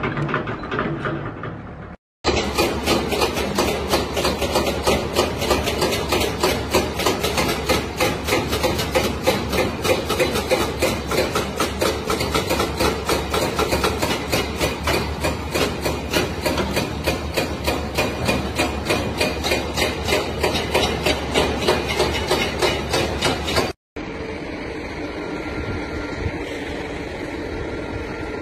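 Hydraulic breaker on a LiuGong excavator hammering rock with rapid, evenly spaced blows over the low hum of the excavator's engine. A brief engine sound comes before it, and a steady machine hum follows a cut near the end.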